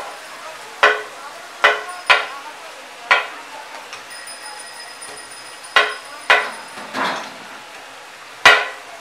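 A metal spatula clangs against a wok, about eight sharp ringing strikes spread irregularly, the loudest near the end. Under them an egg mughlai paratha shallow-fries in oil with a steady sizzle.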